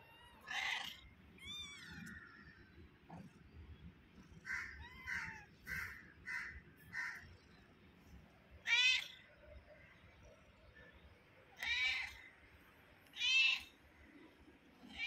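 Kittens mewing: about a dozen short, high-pitched mews, with a quick run of five in the middle and louder single mews in the second half.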